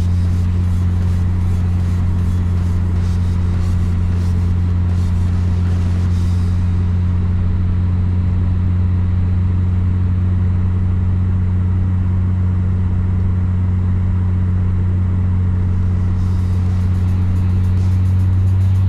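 A car driving steadily: an unchanging low hum of engine and road noise.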